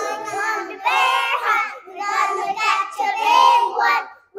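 A child singing in a high voice, a few sung phrases with a short break just before the end.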